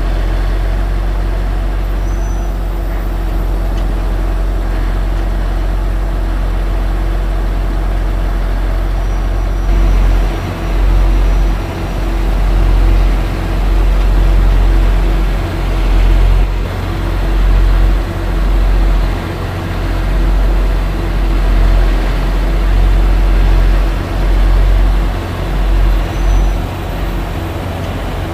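A timber truck's diesel engine running to drive its hydraulic log-loading crane. It is steady at first; from about ten seconds in, the engine speed rises and falls every second or two as the crane lifts and swings logs.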